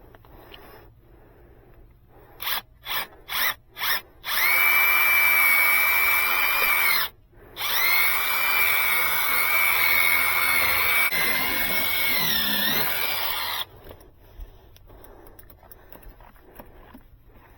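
Power drill triggered in four quick bursts, then run in two long, steady spells with a short pause between. Near the end of the second spell it briefly drops in pitch as it slows under load.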